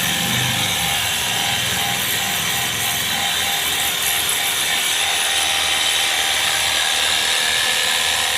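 Electric pressure washer running steadily, its pump motor driving a continuous hissing water spray for cleaning an air conditioner.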